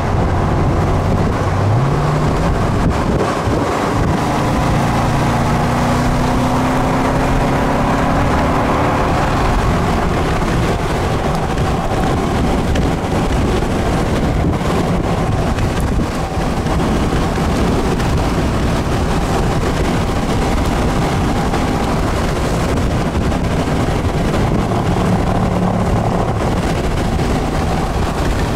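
Road, engine and wind noise heard inside a car moving at speed. The engine note climbs about two seconds in as the car speeds up.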